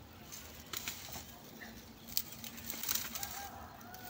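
Dry grass and brush rustling and crackling in short bursts as it is handled by hand. A faint held tone comes in near the end.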